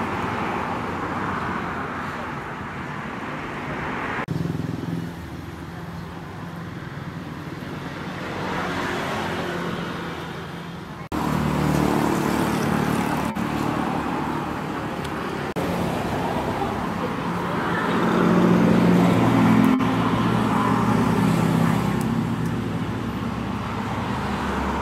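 Street ambience: road traffic with an engine hum, changing abruptly several times.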